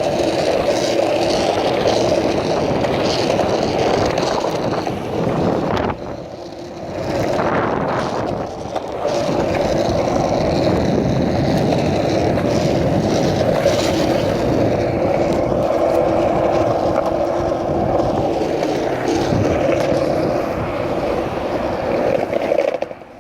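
Skateboard wheels rolling steadily on pavement, a continuous rumble that drops away briefly about six seconds in and again near eight and a half seconds.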